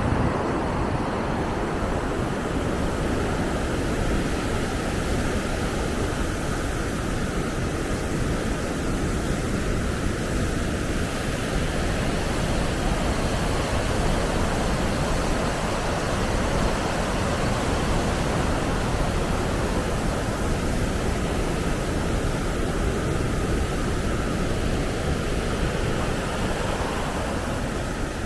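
Water rushing over a river dam: a steady roar with a heavy low rumble.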